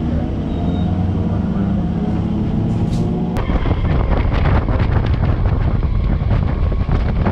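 Suburban electric train: a steady hum at the station platform, then an abrupt change a little over three seconds in to the rattling clatter and rush of the train running at speed.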